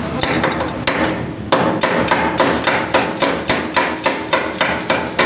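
Chipping hammer striking a fresh weld bead on steel plate to knock off the slag. Rapid metallic taps, a few uneven strikes at first, then a steady run of about four to five a second from about a second and a half in.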